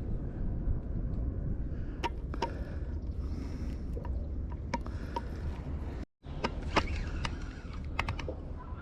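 Spinning reel being cranked, with scattered sharp mechanical clicks, over a steady low rumble. The sound drops out completely for a moment about six seconds in.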